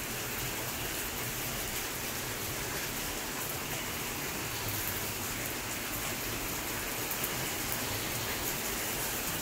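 Steady rain falling: an even hiss with a few sharper drop taps.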